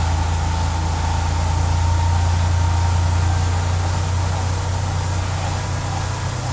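Mitsubishi 3000GT VR4's freshly rebuilt 6G72 twin-turbo V6 idling steadily on its first start-up after the rebuild.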